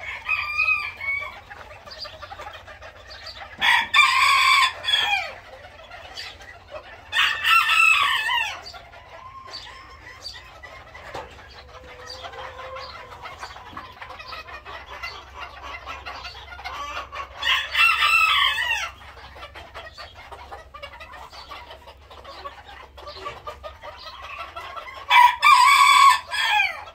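A rooster crows four times, each crow high-pitched and about a second and a half long, trailing down at the end. Between the crows a flock of young Modern Game Bantam hens clucks and chatters softly.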